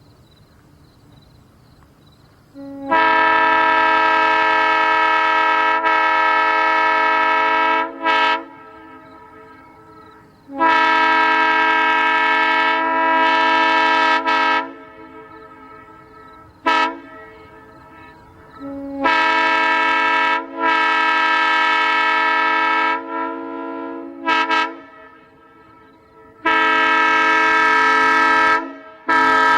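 Multi-chime railroad air horn sounding a chord in several long blasts of about four to five seconds. Short toots come between the blasts, and a last blast starts near the end.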